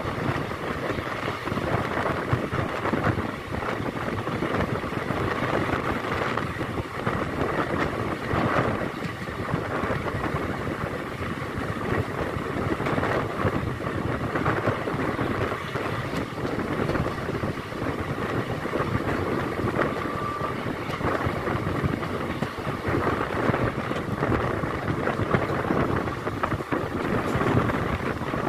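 Passenger train coach running along the track, heard from its open door or window: a steady rumble of wheels on rails mixed with wind buffeting the microphone.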